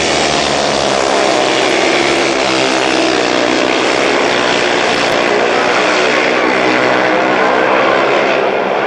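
Several 500 cc single-cylinder speedway bikes racing together, their engines running hard with many overlapping engine notes whose pitch wavers slightly as they go round the track.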